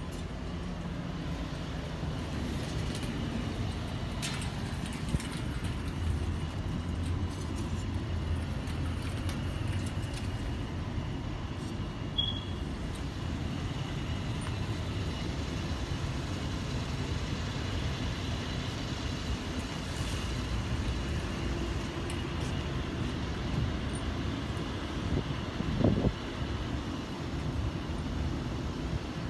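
Steady low vehicle rumble of city traffic, with a short louder thump near the end.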